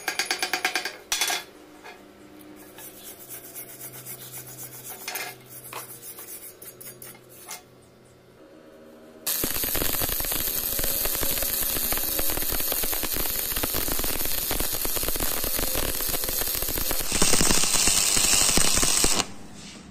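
Stick (SMAW) arc welding of a steel fillet joint with a 6013 electrode: a loud, steady crackle starts about 9 s in, grows brighter and louder near the end, then cuts off suddenly as the arc is broken. Before it, at the very start, comes a quick run of hammer strikes on the steel.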